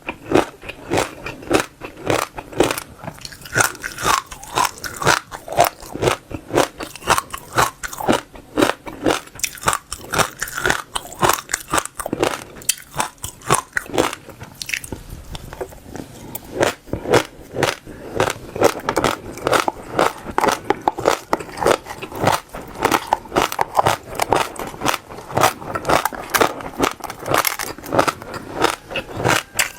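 Passion fruit seeds being chewed, a rapid run of crisp crunches and cracks, several a second, thinning out for a few seconds about halfway before picking up again.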